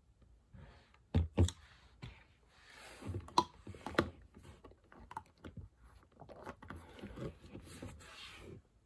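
Someone drinking water from a plastic bottle: scattered clicks and crackles of the plastic and gulps, the sharpest pair about a second in, with soft breaths between.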